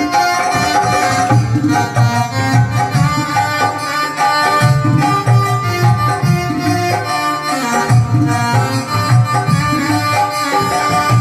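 Devotional bhajan instrumental: an electronic keyboard plays the melody over a steady rhythm on a dholak hand drum.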